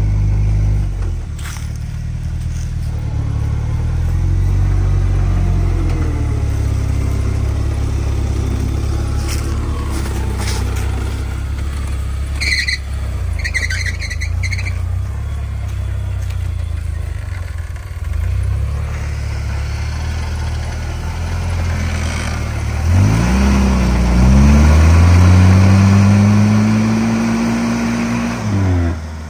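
Jeep Wrangler YJ engine running at low revs as it crawls through deep ruts, then revving up twice about three-quarters of the way in and holding high revs near the end while the tires spin and throw dirt.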